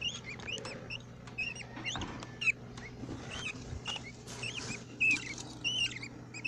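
Budgerigars chirping, a rapid run of short high squeaky chirps, several a second, over a steady low hum.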